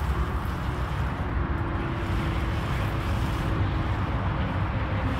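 Steady outdoor background noise: a low, uneven rumble under an even hiss, with no distinct events.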